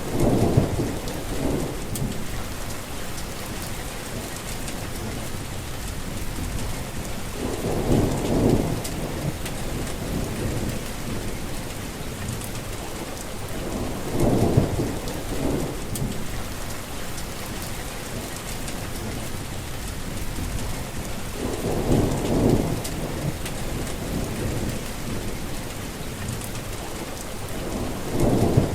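Heavy rain falling steadily, with a short low rumble of thunder about every seven seconds.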